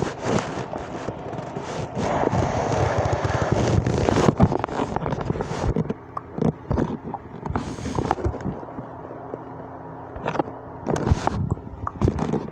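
A person making mouth sound effects: rough blowing and hissing full of crackles for about the first six seconds, then scattered pops and clicks.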